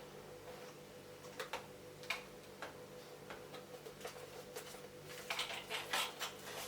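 Faint clicks and taps of small plastic toy parts and packaging being handled, with a denser run of clicks and rustling about five seconds in.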